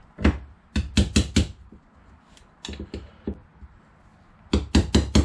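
Hammer tapping a small drift against the fork protector on a Suzuki SV1000 front fork leg to work it loose, in quick groups of light strikes: about four a second in, a few scattered ones, then about six near the end.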